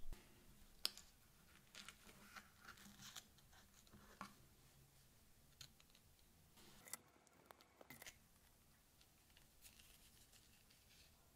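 Faint scraping, rustling and light clicks of cardboard and paper packaging being handled in white cloth gloves: an iPhone box, its tray and the paper documentation sleeve. A sharper click comes about a second in.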